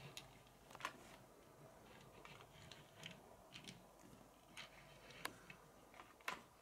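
Faint, scattered light clicks and taps from handling a Majorette die-cast Alfa Romeo Giulia toy car, its tiny hinged doors and metal body ticking against fingers and a wooden tabletop, about ten small clicks with near silence between.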